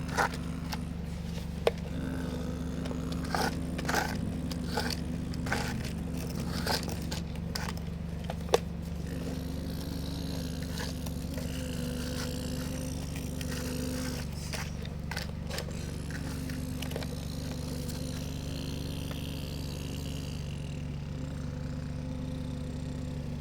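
Excavator running with a steady hum while its bucket scrapes and knocks in earth, several clicks and scrapes in the first half and a sharp knock about eight and a half seconds in.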